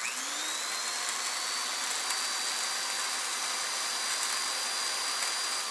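Small DC gear motor with a yellow plastic gearbox, driving a wheel, running under battery power: a high whine that climbs quickly as it spins up, then holds steady over a gear hiss.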